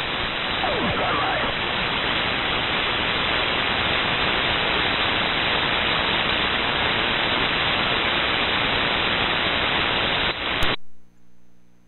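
Band noise on an 11-metre (CB) receiver tuned to 27.025 MHz: a steady rushing hiss on the open channel after the other station unkeys, with faint traces of distant voices in the first second or so. Near the end it cuts off abruptly with a click as the radio is switched over to transmit, leaving near silence.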